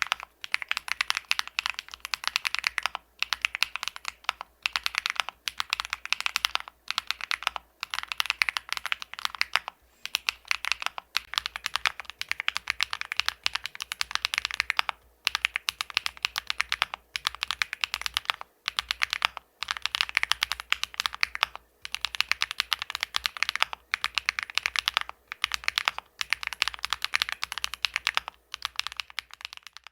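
Typing on an Epomaker Tide49 40% mechanical keyboard with Epomaker Zebra linear switches on a PC plate. Quick keystrokes come in runs, broken by short pauses every two or three seconds.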